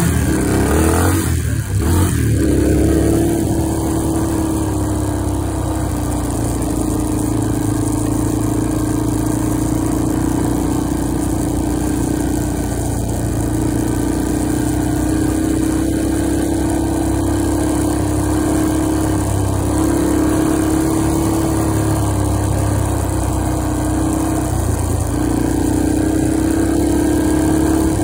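Engine of an off-road vehicle running steadily under throttle while it is ridden, with wind hissing over the microphone. The engine note drops briefly a few times, at about two seconds in and again around 6, 13, 19 and 25 seconds, as the throttle eases and picks back up.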